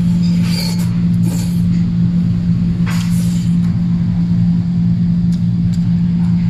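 Eating sounds: a few short slurps and chewing noises as wide flat noodles and horse meat are eaten with chopsticks, over a loud steady low hum.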